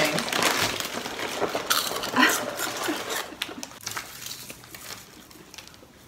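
Rustling of a foil chip bag and crackers and potato chips being crushed by hand and crumbled onto a wooden tabletop, a dense crackle that thins out toward the end.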